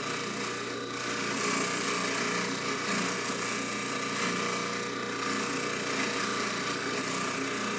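A jeweler's polishing buffer motor running steadily, with a hollow chain held against the spinning wheel making a continuous rubbing hiss over the motor's hum.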